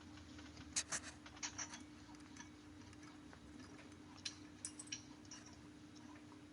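Faint, light metallic clicks and taps from hand tools working on the rear brake caliper as its 13 mm bolts are undone. The clicks come in two short clusters, about a second in and again about four seconds in, over a steady low hum.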